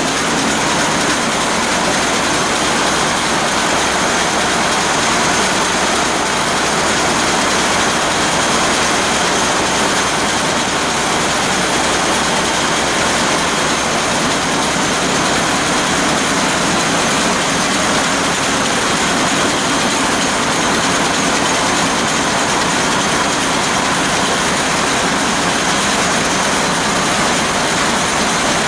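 Burmeister & Wain DM742 VT2 BF90 seven-cylinder two-stroke marine diesel running, heard close up at its cylinder heads and valve gear: a loud, even mechanical din that holds steady throughout.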